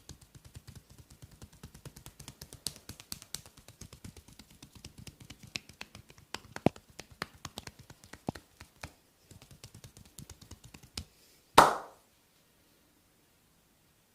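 Rapid percussive massage taps on a person's back, about seven a second, with a brief pause. Near the end comes one loud, sharp smack.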